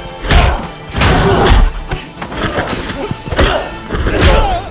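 Added fight sound effects: about four hard hits and thuds spread through a few seconds, over action music.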